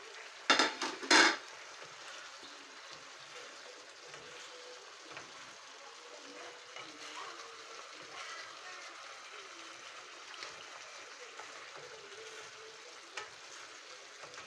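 Fish frying in a pan of tomato-and-onion sauce, a steady low sizzle. Two loud knocks, about half a second and a second in, break over it.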